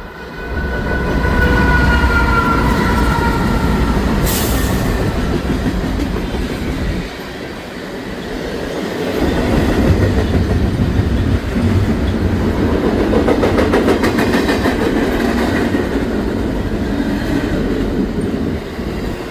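Norfolk Southern freight train rolling past: a steady rumble of wheels and cars, with a rhythmic clacking over the rail joints in the second half. In the first few seconds several high tones fall slowly.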